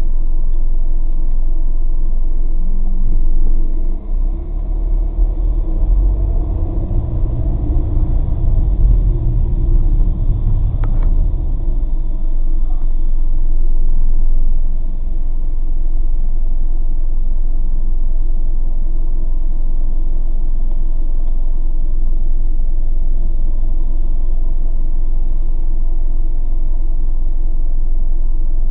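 Car rumble heard from inside the cabin: engine and road noise grow heavier and uneven while the car drives for about ten seconds, then settle into a steady idling hum once it stops.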